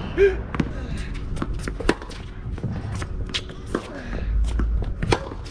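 Tennis rally on a hard court: ball bounces and racket strokes as sharp, irregular pops, mixed with the players' footsteps scuffing on the court.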